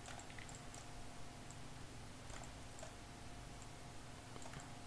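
A few faint, scattered computer mouse clicks over a steady faint hum.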